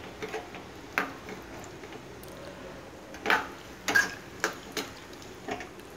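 Metal spoon tapping and scraping against a metal pan while stirring pieces of dried coconut frying in ghee: a handful of irregular sharp taps, most of them bunched between about three and four and a half seconds in.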